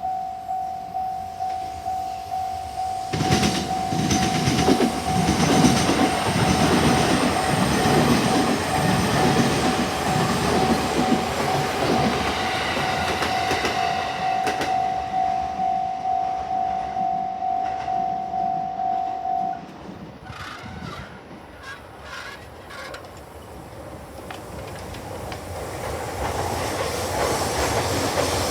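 Japanese level-crossing warning bell ringing in a steady electronic 'kan-kan' of about two strikes a second while an electric train rumbles and clatters across the crossing, starting about three seconds in. The bell stops about two-thirds of the way through, and another train's noise builds near the end.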